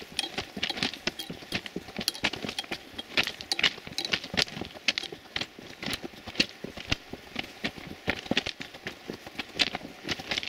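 Footsteps crunching on loose railway ballast stones: a quick, irregular run of gravel crunches and clicks, several a second.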